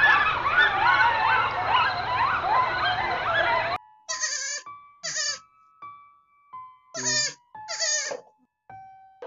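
A group of meerkats chattering in a dense chorus of quick rising-and-falling chirps, which stops abruptly about four seconds in. Then a young goat kid bleats four times, in two pairs.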